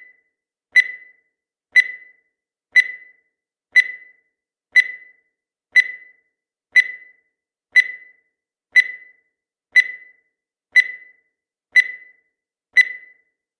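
Countdown timer sound effect: a short, high beep repeating once every second, each fading quickly.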